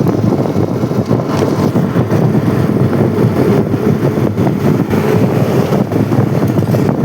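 Loud, steady rumble of heavy road-construction machinery running.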